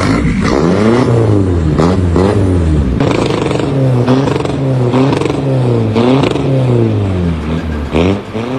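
Engine revving up and dropping back again and again, its pitch rising and falling about once a second.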